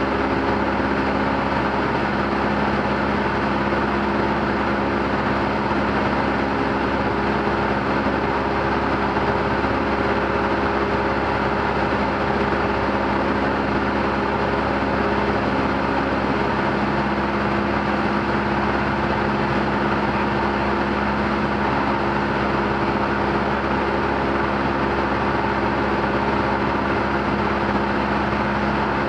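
Single-engine light aircraft's piston engine and propeller running steadily at cruise power, heard from inside the cockpit as a constant, even drone.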